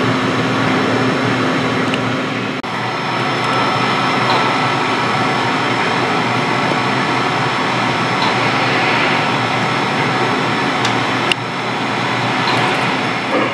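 Steady mechanical whirring with a hiss. A low hum under it cuts off about two and a half seconds in, and there is a single click near the end.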